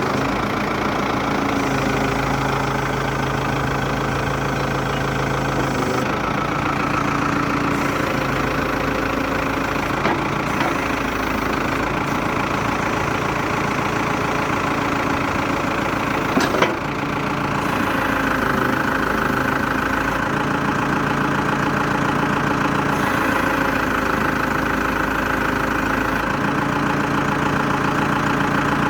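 New Holland LB110 backhoe loader's diesel engine running steadily, its pitch shifting a few times as the revs change, with a single sharp click about halfway through.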